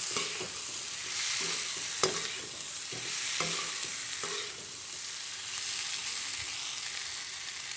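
Potatoes and capsicum frying with a steady sizzle in a metal kadai while a metal spatula stirs and scrapes through them, with a few sharp clinks of the spatula against the pan.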